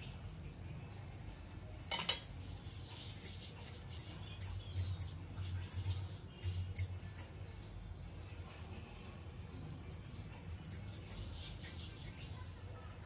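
Metal bangles on the wrist clinking in quick light jingles as a hand rubs oil over rolled-out chapati dough, with the soft rub of the palm on the dough; the sharpest clinks come about two seconds in.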